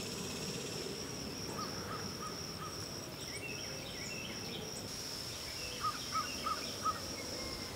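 Steady high-pitched insect trilling, with short bird chirps in quick runs: four faint ones a couple of seconds in and five louder ones about six seconds in.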